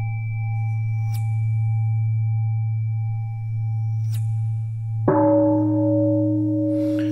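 Steady ringing drone of sustained bell-like tones over a low hum. About five seconds in, a new ringing tone starts suddenly and holds steady. Two faint clicks come about a second in and again about four seconds in.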